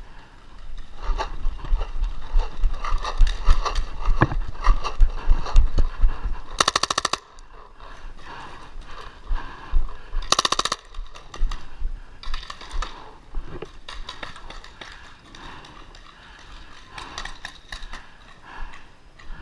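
Paintball markers firing in rapid strings of shots, including a Tippmann 98 Custom with a response trigger firing full-auto. The shooting is dense from about a second in until about seven seconds in. Two very fast, even bursts follow, about seven and ten and a half seconds in, then scattered shots.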